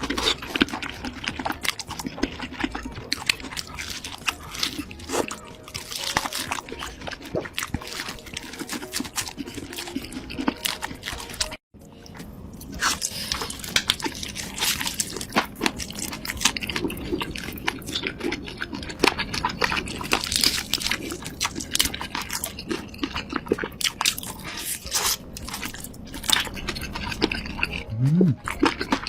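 Close-miked eating sounds: dense crunching, biting and chewing of food, with a momentary cut to silence about a third of the way through.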